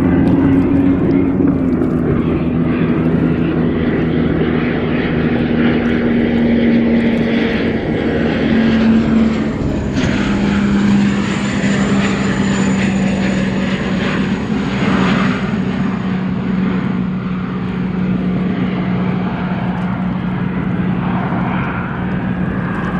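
Unlimited hydroplane's gas turbine engine running: a steady low drone that eases slightly lower in pitch, with a thin high whine coming in about ten seconds in.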